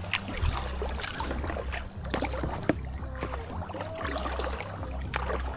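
Water splashing and gurgling against the hull of a sail-driven kayak, in many small irregular splashes, with wind rumbling on the microphone in gusts.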